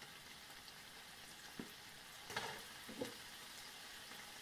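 Razor clam meat, garlic and herbs frying in butter over a low heat in a frying pan: a faint, steady sizzle, with a few soft knocks around the middle.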